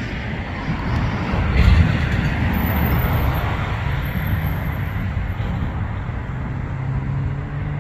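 Steady low rumble of a distant CN diesel freight train approaching, mixed with road traffic noise. There is a brief surge about a second and a half in, and a low engine hum grows clearer near the end.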